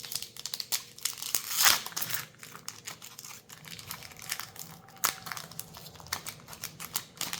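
Plastic wrapper of a Magic: The Gathering collector booster pack crinkling and being torn open, with the loudest tear about a second and a half in, then lighter crinkling and clicks as the pack is handled.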